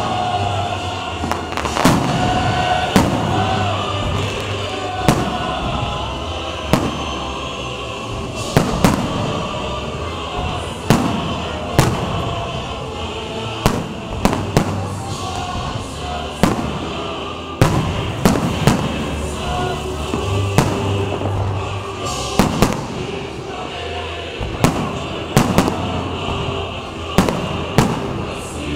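Aerial firework shells bursting in a steady run of sharp bangs, roughly one a second, with some close together. Music plays continuously underneath.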